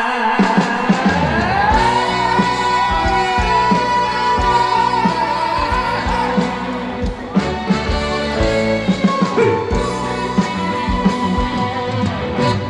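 Live trot song with band accompaniment and a steady drum beat, with a long held note that wavers in pitch, rising in about two seconds in and held for several seconds.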